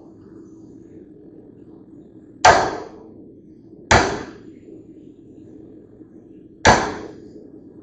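Three hammer blows on steel, unevenly spaced, each a sharp strike with a short ringing decay, over a steady low hum.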